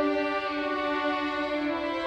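Violin ensemble playing slow, sustained notes in harmony, with several parts held together and changing pitch every half second or so.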